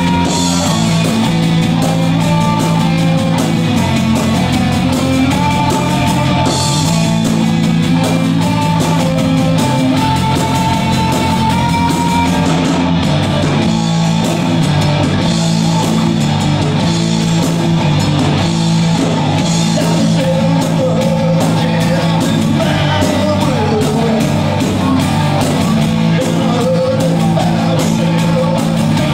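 Live Australian pub rock band playing at full volume: two electric guitars, electric bass and a drum kit, with drum strokes keeping a steady beat.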